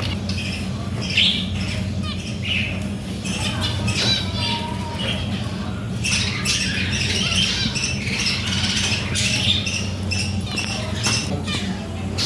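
Many small cage finches chirping and calling in a colony cage while they are caught by hand, the chirping growing busier about halfway through. A steady low hum runs underneath, and there are a few sharp clicks.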